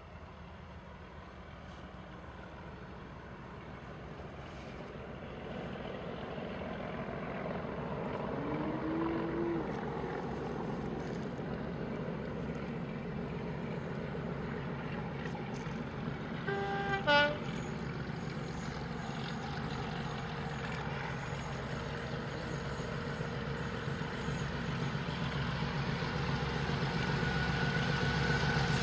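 Two DRS Class 37 diesel locomotives, with English Electric V12 engines, working uphill at full throttle, their engines growing steadily louder as they approach. A short two-tone horn sounds a little past the middle.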